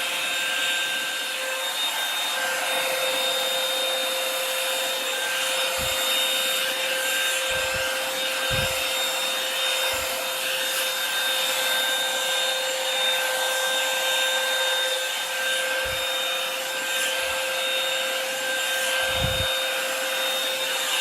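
Revlon One-Step hot-air brush hair dryer running steadily on its high setting: a loud rush of air over a constant motor whine. A few brief low thumps sound now and then as the brush is worked through the hair.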